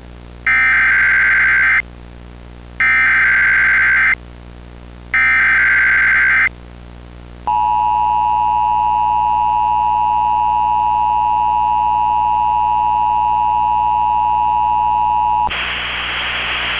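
Emergency Alert System tones: three SAME digital header bursts, each a little over a second long with short gaps between. Then the steady two-tone EAS attention signal sounds for about eight seconds, cuts off, and gives way to a hiss of static near the end.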